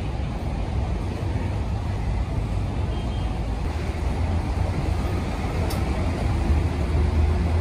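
Steady low rumble of a road vehicle on the move, with road and engine noise.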